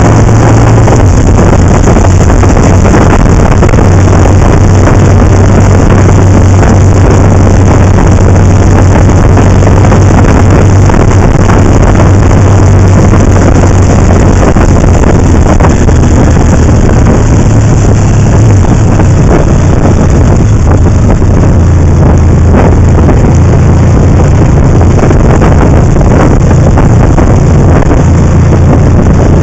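Motorcycle engine running at road speed, its low note dipping slightly about a second in and rising a little near the end, under a steady rush of wind over the microphone.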